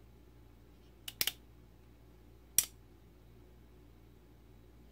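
Metal clicks from a 1873 Colt-replica single action revolver's action being worked by hand: a quick run of three clicks about a second in, then one sharper click a second and a half later.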